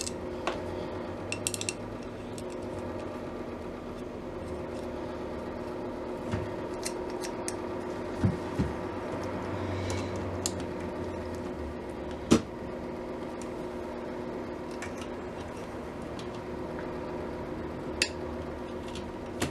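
Scattered metallic clicks and clinks from handling a rivet and a hand rivet gun while trying to fit the rivet into a speaker mounting hole, the sharpest click about twelve seconds in. A steady hum runs underneath.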